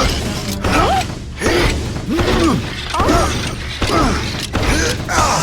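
Cartoon sound effects of the animated truck straining to reach up high. A series of short squeaky glides, each rising then falling, come about once a second over a steady low rumble.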